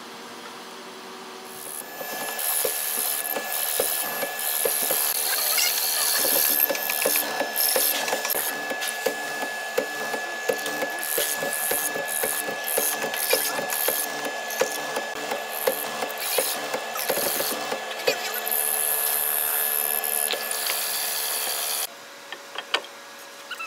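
Horizontal mortising machine cutting into a red hardwood beam: a steady motor whine with a dense, irregular crackle of the bit chewing wood and throwing chips. It starts about two seconds in and cuts off suddenly near the end.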